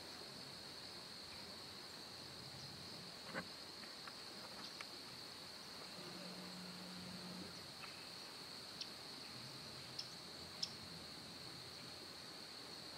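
Quiet woodland ambience: a faint steady high-pitched hum, a few scattered light clicks and ticks, and a short low hum lasting about a second and a half, six seconds in.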